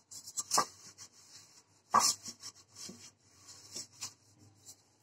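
Fingers rubbing oil over a perforated stainless-steel steamer plate, with a few sharp knocks of the steel dish against the pot. The loudest knock comes about two seconds in.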